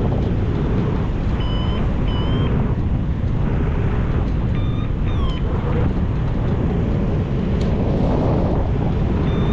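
Steady wind buffeting the microphone from the airflow of a hang glider in flight. A few short, high electronic beeps come through it, two near the start and two around the middle, the last one sliding down in pitch.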